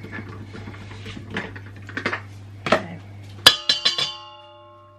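A stand mixer's wire whisk knocked against its stainless steel bowl. First a few light knocks and clatters, then about three and a half seconds in a quick run of sharp metal strikes that ring on and fade over about a second.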